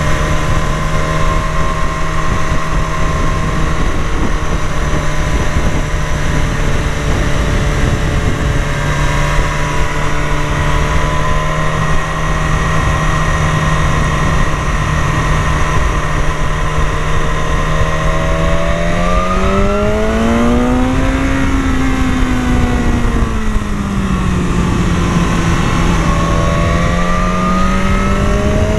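BMW S1000RR inline-four engine running at steady revs under way, with heavy wind rush on the bike-mounted microphone. About twenty seconds in the revs climb and fall back, then rise again near the end.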